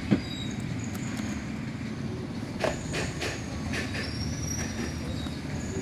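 Steady low rumble of street traffic with thin, high squeals coming and going. A few small sharp clicks, one just after the start and a cluster about two and a half to four seconds in, as a precision screwdriver works the screws inside an opened iPhone 6 Plus.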